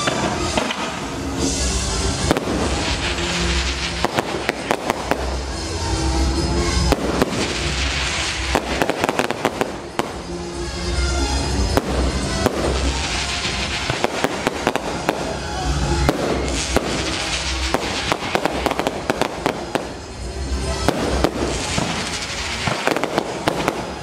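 Fireworks display: dense volleys of crackling and bangs from bursting aerial shells and spark fountains, with brief lulls about ten and twenty seconds in.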